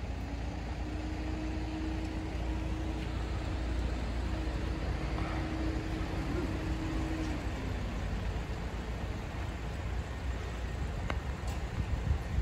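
A motor vehicle's engine runs with a steady low rumble. Over it, a held hum lasts about seven seconds and then fades.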